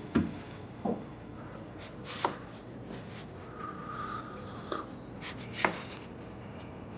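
A knife cutting fruit on a cutting board: about five separate sharp knocks a second or so apart, with faint rubbing between them.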